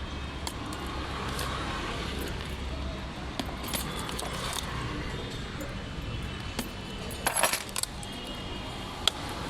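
Small clicks and rattles of a phone box and its packaging being handled and opened, with a busier burst of rattling clicks about seven seconds in and one sharp click near the end, over a steady low hum.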